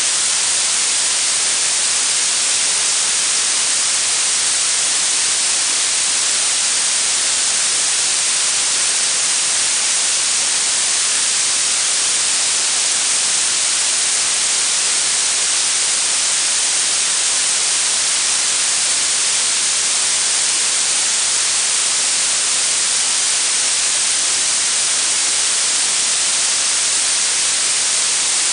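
Synthetic blue noise: a steady, even hiss weighted toward the high frequencies.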